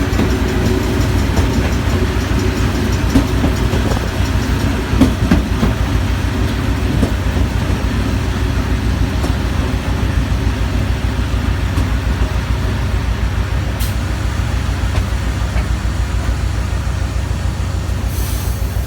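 A train rolling on the rails into a station, a steady low rumble with a few knocks in the first five seconds and a short hiss near the end.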